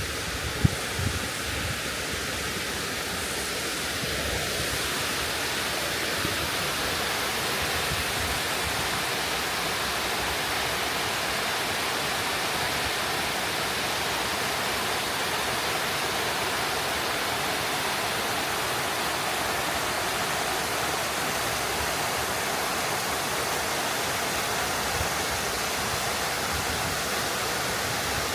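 Kiyotaki waterfall, water pouring down in a steady, even rush that grows a little fuller a few seconds in. A few low thumps sound in the first second.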